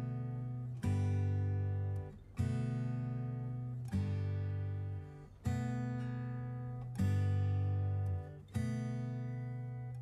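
Background music: an acoustic guitar strumming slow chords, a new chord about every one and a half seconds, each left to ring and fade.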